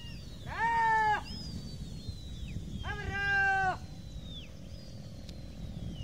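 Two loud, drawn-out animal calls, each under a second and about two seconds apart, over a steady low rumble. Thin, high, falling whistles recur in the background.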